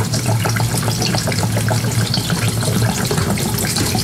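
Fuel pouring steadily from a plastic jerry can into a lawnmower's plastic fuel tank.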